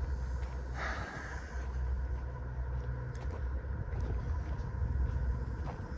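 Steady low outdoor rumble, with a brief rustle about a second in.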